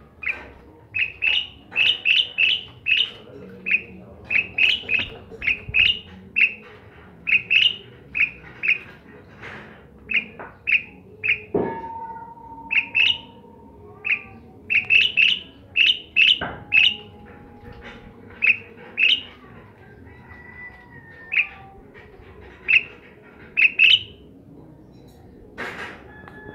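Asian pied starling (Gracupica contra) calling: runs of short, loud chirping notes, several a second, with brief pauses between runs. Two sharp knocks come about twelve and sixteen seconds in.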